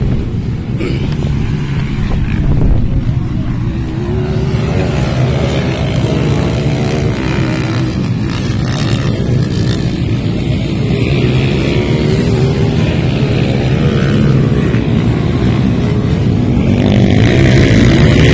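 Dirt bike engines running and revving on a motocross track, their pitch rising and falling as the riders throttle up and back off. The sound gets louder near the end.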